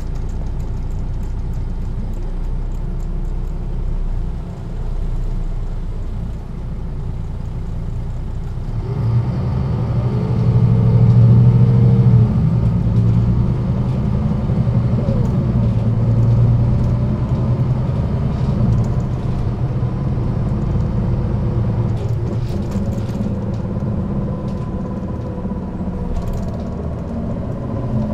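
1998 MAN NG 313 articulated bus's diesel engine running with a low rumble, then opening up about nine seconds in and pulling louder, with a faint whine from the ZF gearbox over it, before holding a steady run.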